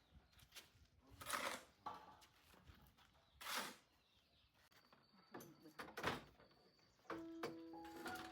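Three short swishing or rustling sounds a couple of seconds apart, with a few light clicks, then soft background music with held notes starting near the end.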